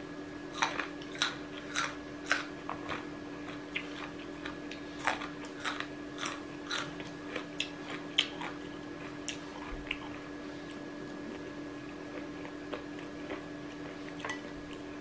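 A person chewing a mouthful of stir-fried chicken, fennel and rice, with many short crunchy clicks that thin out about halfway through, over a steady low hum.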